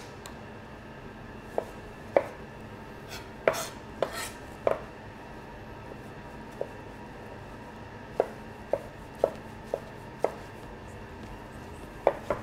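Chef's knife dicing a tomato on a cutting board: sharp, irregular knocks of the blade on the board, in two bursts with a pause of a few seconds between them.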